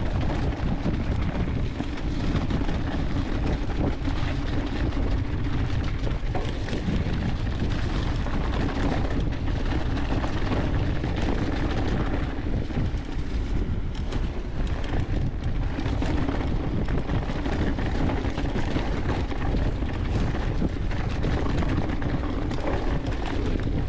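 Mountain bike descending a singletrack covered in fallen leaves: the tyres roll steadily through leaves and dirt, with wind buffeting the camera microphone.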